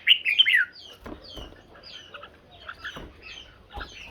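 Red-whiskered bulbuls in a song duel: a loud burst of warbled, whistled song right at the start, then short hooked chirps repeated every half second or so.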